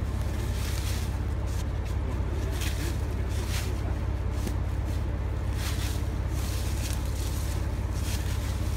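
Wind buffeting the microphone: a steady low rumble. Brief rustles of dry leaves recur every second or two.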